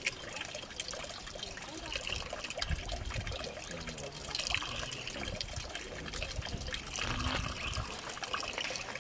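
Water trickling and splashing from a hand pump's spout into a plastic bucket as the pump handle is worked.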